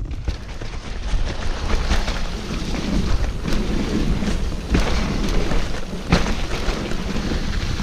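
Mountain bike rolling fast over a rough dirt trail: steady tyre rumble and crackle with frequent knocks and rattles as the bike hits bumps.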